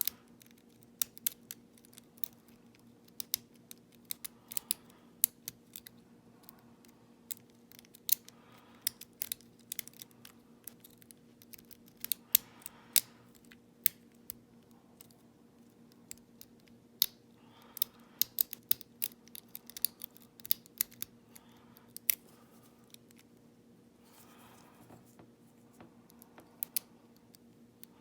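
Lock pick and tension wrench working the pins of an ISEO euro cylinder, heard as irregular sharp metallic clicks and small scrapes. A steady low hum runs underneath.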